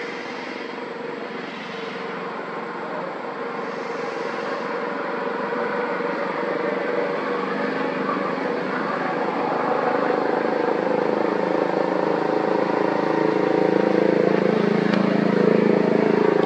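Engine drone, steady and slowly growing louder throughout.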